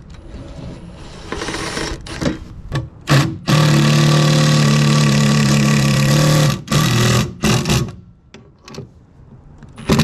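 Cordless power driver running in short spurts and one long even run of about three seconds, driving screws to fasten a plate back on.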